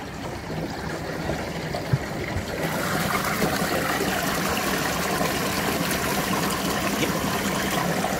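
Water churning and splashing inside an intercooler ice-chest tank as the Pierburg CWA400 electric pump circulates it at a 30% duty cycle. The sound grows louder over the first couple of seconds and is louder still once the tank's hatch cover is lifted, then runs steady.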